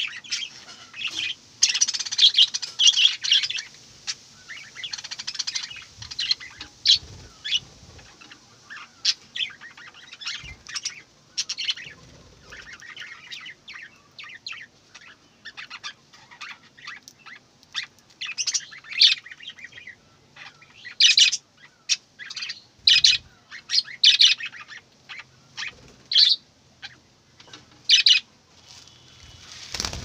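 A flock of budgerigars chirping and chattering: a dense run of warbling chatter in the first few seconds, then scattered sharp, high chirps, loudest in the second half.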